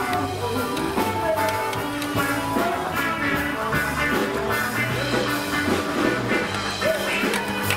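Background music with drums and a bass line.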